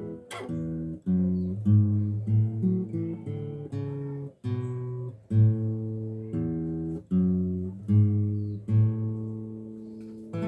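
Acoustic guitar music: plucked low bass notes alternating with higher chords in an even, steady rhythm.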